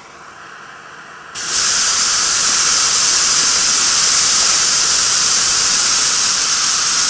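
A strand of potassium nitrate and sugar rocket candy with red iron oxide catalyst ignites about a second and a half in and burns with a loud, steady hiss. It burns in about six or seven seconds, nearly double the burn rate of the same propellant without the catalyst.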